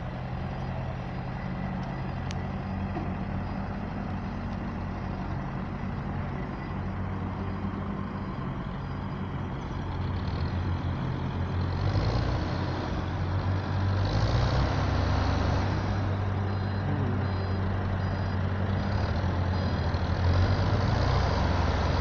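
Heavy construction vehicle's diesel engine running steadily, growing louder about ten to twelve seconds in, with a faint repeating high beep.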